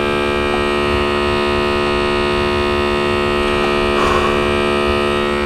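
Smoke tester's small electric air pump running with a steady, even hum, pushing smoke into the intake manifold during a vacuum-leak test.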